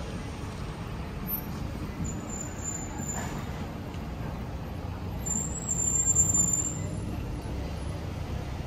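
Street traffic: a car's engine and tyres rumbling past close by, loudest about six seconds in. A thin high squeal comes twice.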